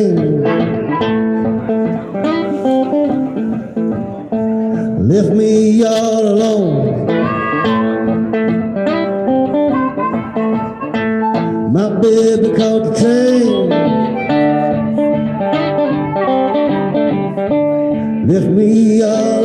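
Live acoustic blues: acoustic guitar picked in a steady rhythm, with harmonica playing over it in long sliding notes.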